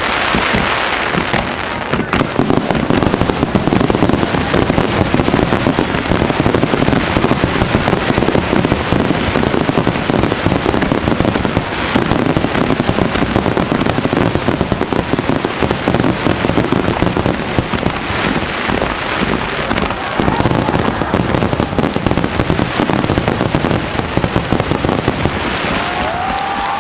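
Fireworks finale barrage: a dense, unbroken run of aerial shell bursts and crackle, with a few rising whistles near the end.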